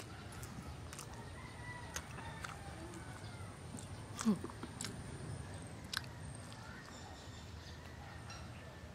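Close-miked eating sounds: chewing and lip smacks on tender braised pork ribs, with a few sharp wet clicks and a short low 'mm' about four seconds in.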